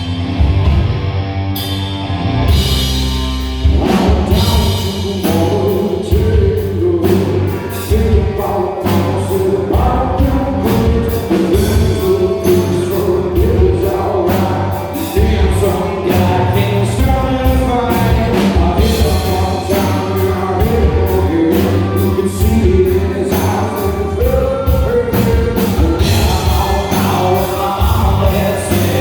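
A live rock band playing a song, with drums and a lead voice singing a melody that comes in about four seconds in.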